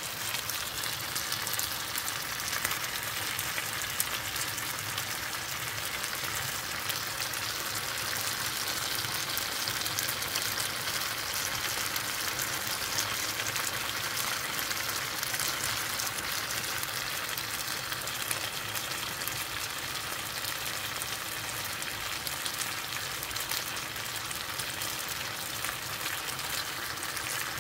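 Corn cheese, soaked corn kernels topped with shredded mozzarella, sizzling and bubbling steadily in a small square pan with fine crackling, as the cheese begins to melt.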